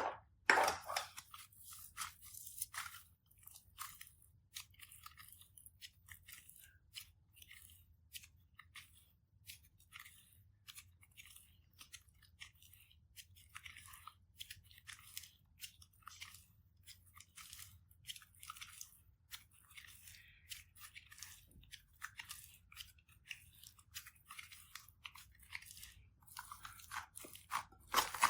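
Slime being pressed and worked by hand, giving a rapid run of small crackles and pops, louder in the first couple of seconds and again near the end.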